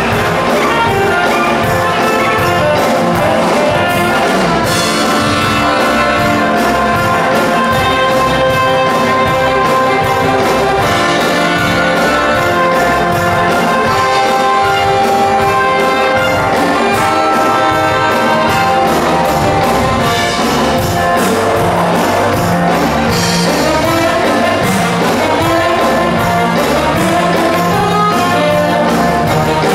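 Loud, upbeat brass-led music with a steady beat, playing without a break.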